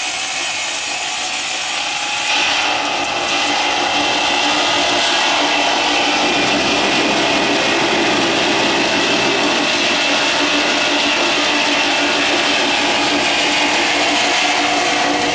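Powered sawing machine cutting ironwood, running steadily, with its tone changing about two seconds in.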